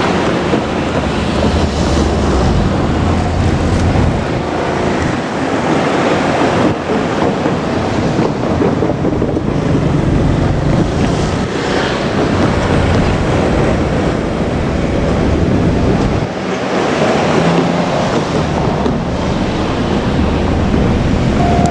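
Strong wind buffeting the microphone as a steady loud rush, over the low running rumble of a KiHa 200 diesel railcar.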